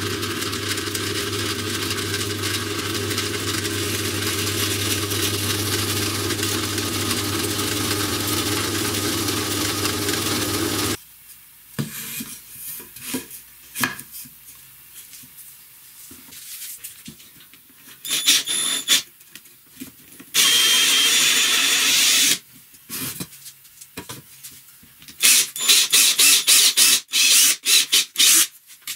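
Benchtop drill press running steadily with a low hum for about eleven seconds, then stopping abruptly. Then a few knocks as wooden pieces are handled, a cordless drill running in a couple of short spells, and near the end a rapid string of short stop-start trigger bursts from the cordless drill.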